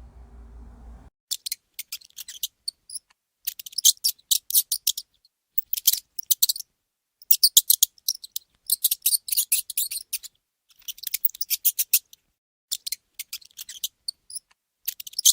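Mouse squeaking: quick runs of very short, very high-pitched squeaks with brief pauses between, starting about a second in.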